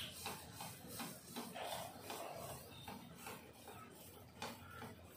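Thavala vadai batter (a lentil-and-rice fritter) deep-frying in hot oil in a kadai: faint sizzling with small, irregular crackles.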